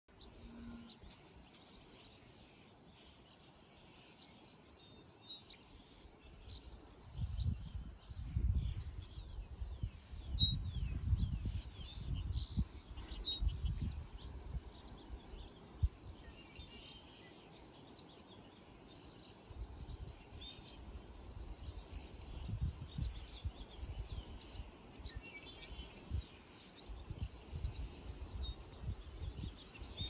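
Small birds chirping and singing over a faint steady hiss. Gusts of wind buffet the microphone in low, irregular rumbles, first from about a quarter of the way in and again through the last third.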